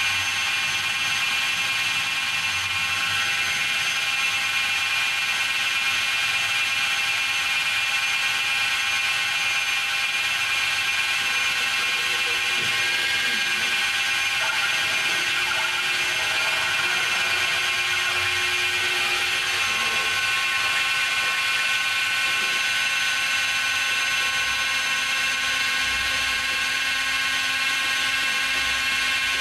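Makita 750-watt die grinder, used as the spindle of a homemade CNC router, running at speed with a steady whine. Around the middle, fainter tones shift and a new low tone sets in as the machine's axes move.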